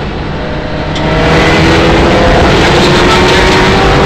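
Mitsubishi Lancer Evo 9 rally car's turbocharged four-cylinder engine heard from inside the cabin, easing briefly and then pulling hard from about a second in, its pitch climbing steadily under acceleration.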